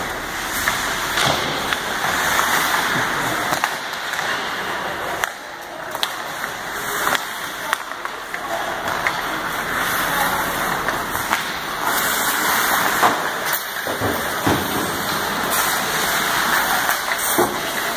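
Ice hockey play on an indoor rink: skate blades scraping and carving on the ice in a steady hiss, with scattered sharp clacks of sticks and puck.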